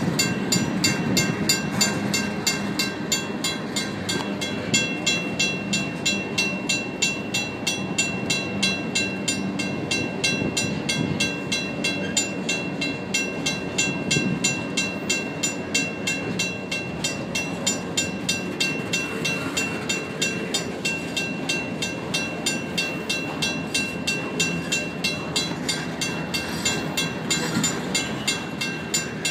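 A WCH mechanical crossing bell ringing with steady, even strokes, over the rolling rumble and clatter of empty freight hopper cars passing on the rails.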